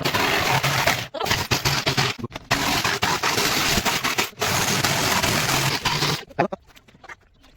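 A woodworking tool working on wood, giving a harsh, continuous scraping noise. It breaks off briefly three times and stops about six seconds in.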